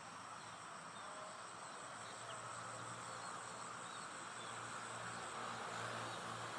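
Steady rain falling, building slightly louder, under a high steady insect drone, with a few faint chirps.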